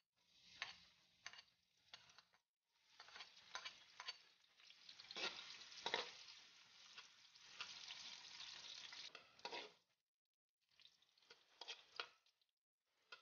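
Sliced garlic and onion sautéing in a thin aluminium wok: a faint frying sizzle, with a metal spoon scraping and clinking against the pan as they are stirred. The sound drops out abruptly a few times.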